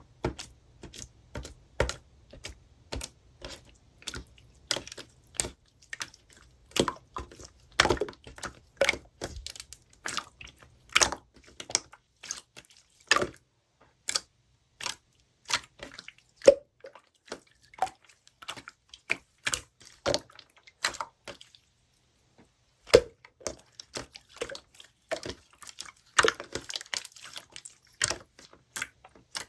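Slime being pressed and stretched by hand, giving irregular wet clicks and pops one after another.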